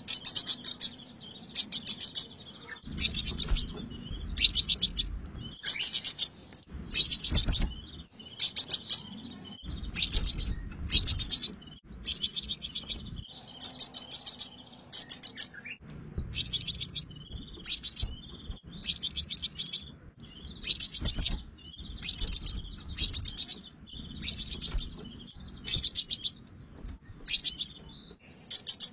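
Sunbird (the Vietnamese 'hút mật xác pháo') singing, a recording meant as a trapping lure: repeated fast, high trills about a second long, with thin high chirps between them.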